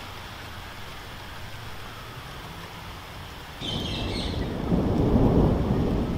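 Steady rain falling. A little over three seconds in, a low rumble of thunder sets in suddenly and swells, loudest near the end.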